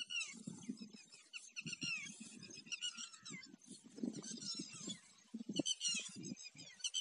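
Many birds chirping and twittering at once, a dense chorus of short, falling calls, over low, uneven rumbling.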